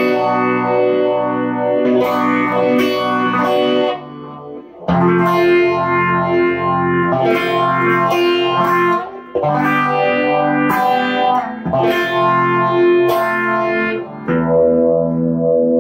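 Electric guitar, a single-coil Fender American Stratocaster, played through effects pedals into a Fender Twin Reverb amp: chords ringing out one after another, with short breaks about four and nine seconds in.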